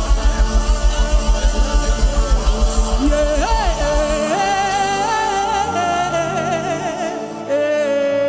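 Gospel worship music: a fast, even low beat that stops about four seconds in, under sustained backing chords and a wordless, wavering melodic vocal line.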